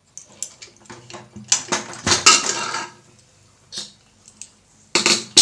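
Pressure cooker lid being worked off the pot: metal clinks and scrapes against the rim, a denser scraping clatter about two seconds in, and a loud metal clank near the end.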